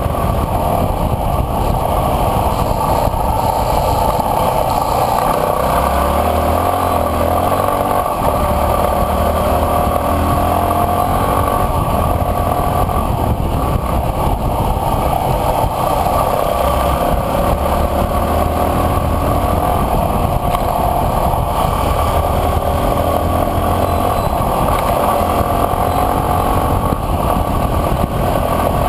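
Enduro dirt bike engine running under way, loud and steady, its pitch wavering up and down with the throttle.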